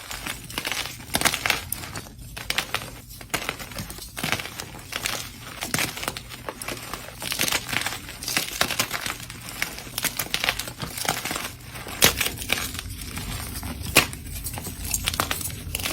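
Slime mixed with gym chalk being squeezed and worked, giving dense, irregular crunching and crackling, with two sharper snaps near the end.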